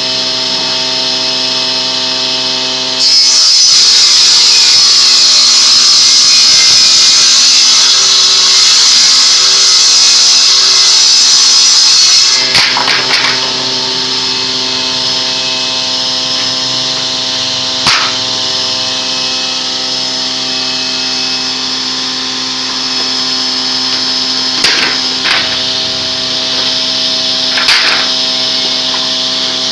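A woodworking power machine running steadily, with a loud harsh cutting noise from about three seconds in to about twelve seconds in, then a few sharp knocks of wood.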